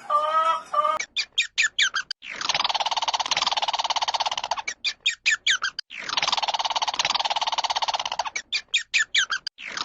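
A bird calling in a repeated phrase: a run of quick rising chirps, then a long rapid rattling trill, three times over. It is preceded for about the first second by the tail of a dog's howl.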